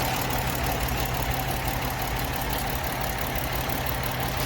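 Ford 3.0-litre V6 idling steadily with a misfire on cylinder #4, a fault that the injector test traces to a shorted #4 fuel injector.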